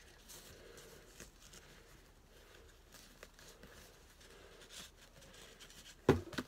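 Faint rustling and handling of packaging, with small scattered clicks, then one loud, short thump about six seconds in.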